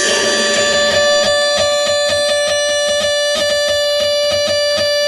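Live experimental electronic music: a steady drone of several held pitches, over which runs a rapid, uneven stream of short plucked clicks.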